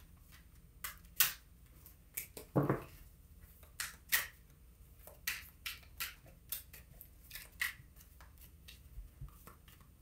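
A deck of tarot cards being shuffled by hand: a string of short, irregular card slaps and snaps, the sharpest about a second in.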